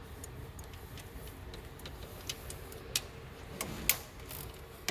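A handful of sharp, scattered metallic clicks and clinks, mostly in the second half, from a socket wrench and extension being handled on the camshaft bearing cap bolts of an open engine. A faint steady low hum runs underneath.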